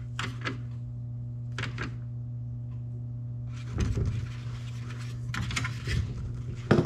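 Hand screwdriver driving screws into a plastic grille's mounting tabs: a few sharp clicks, then a stretch of scraping and clicking about halfway through, over a steady low hum.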